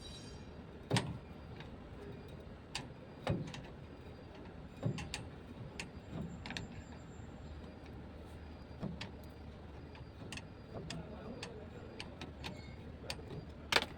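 Irregular metal clicks and knocks of hand tools working on a bus's air dryer filter housing, a few heavier knocks among lighter ticks, the loudest near the end.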